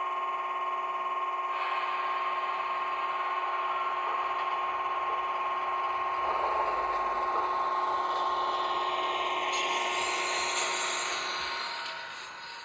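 Model train running on the layout: a small electric locomotive motor gives a steady high whine, and a rushing noise joins about a second and a half in and builds, then the whole sound fades near the end as the train moves away.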